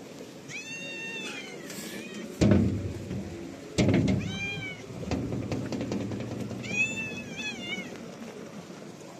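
A domestic cat meowing three times, drawn-out calls, the last one wavering in pitch. Two sudden low thumps between the first and second meows are the loudest sounds.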